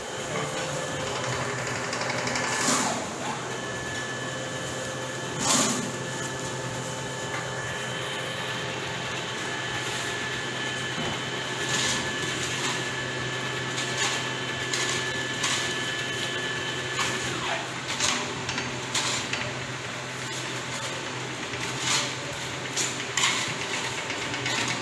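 Gantry concrete 3D printer running: a steady motor hum with a higher whine that holds for a while and cuts off partway through, and scattered clicks and knocks, two of them louder early on.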